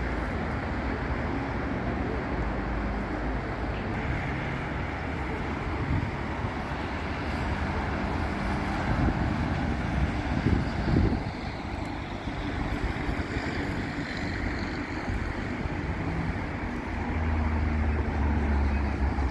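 Steady road traffic on a busy city avenue, with cars passing one after another. A heavier vehicle's deeper engine rumble swells near the end.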